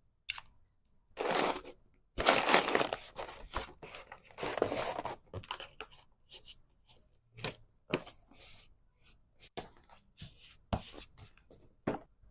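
Small packaging materials being handled up close, with bursts of crinkling, rustling and tearing, the loudest about two seconds in. Later come scattered sharp taps and clicks as items are set down and pressed into place.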